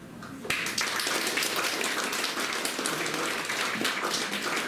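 Audience applauding, starting suddenly about half a second in and keeping up as a dense clatter of many hands.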